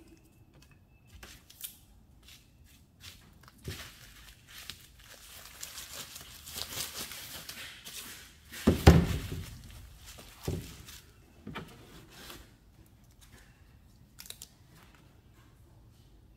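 Crinkling and tearing as small pieces of butyl sealing tape are peeled from their backing paper and pressed over screw holes, in scattered small crackles. About nine seconds in comes the loudest sound, a short rustle with a thump, as a cloth rag is handled.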